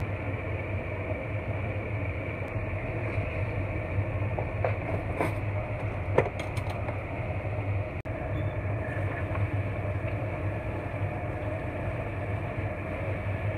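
Steady low hum with a rushing noise from the stove while a pot of somen noodles boils. A few light clicks come about five to seven seconds in, the sharpest near six seconds.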